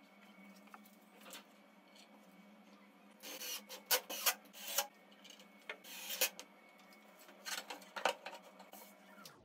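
Cordless drill driving screws into a pine frame in short bursts, about three seconds in and again around six seconds. Knocks and scraping of wood follow near the end as the frame is handled.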